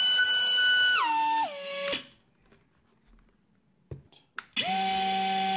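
BrotherHobby Tornado T1 2205 2600KV brushless motor with a DalProp T4045BN prop whining steadily at full throttle on a thrust stand, then stepping down in pitch twice as the throttle is pulled back and spinning down about 2 s in. After a pause with two short clicks, the motor starts again, now with a DalProp Q4040 prop, at a steady, lower whine at 25% throttle.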